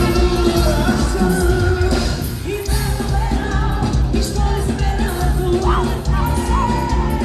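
Forró band music with a singer, loud and continuous.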